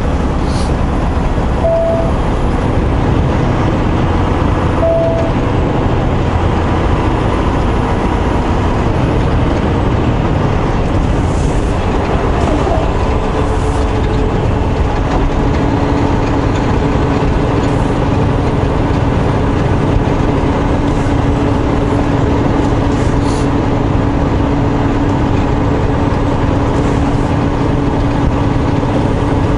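Steady engine drone and road noise inside a truck's cab while driving on the highway.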